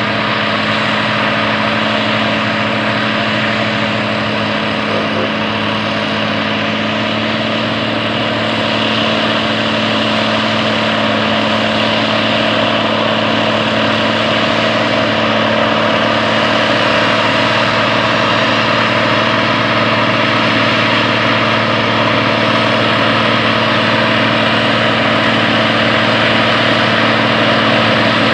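1969 John Deere WA-14 four-wheel-drive tractor's diesel engine running steadily under load, pulling a 12-bottom plow. It grows slowly louder as the tractor comes closer.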